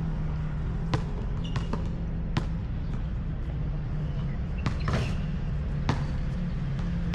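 A basketball bouncing on an outdoor asphalt court: a handful of sharp, irregularly spaced bounces over a steady low hum.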